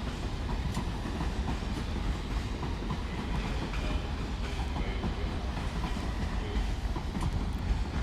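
London Underground train running out on the track, a steady low rumble with occasional clicks from the wheels and rails.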